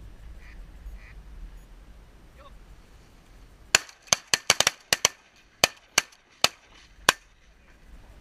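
A rapid volley of about a dozen shotgun shots from several duck hunters firing together, starting a little under four seconds in and ending about three seconds later. A few faint quacks come before the shooting.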